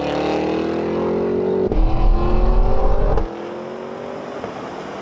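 Large luxury SUV engine at full throttle during a standing-start drag race, its pitch climbing through each gear and dropping back at upshifts, twice. The sound is quieter for the last couple of seconds.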